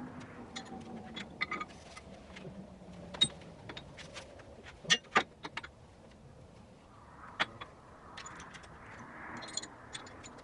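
Scattered clinks and knocks of lifting-strap and chain hardware being handled while the rigging is reset, the loudest a quick pair about five seconds in.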